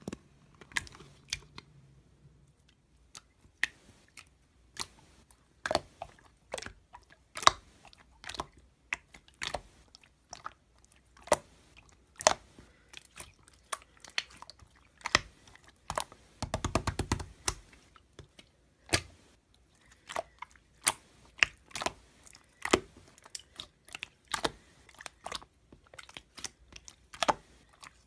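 Irregular, close-up crunches and clicks, one or two a second, with a brief denser rattle about two-thirds of the way through.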